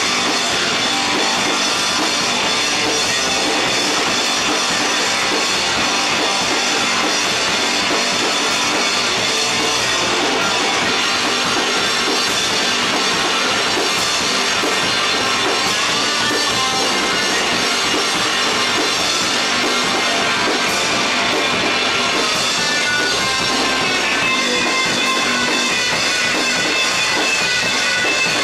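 Rock band playing live and loud: a full drum kit and guitars in a dense, steady wall of sound. Near the end, sustained high held notes rise above it.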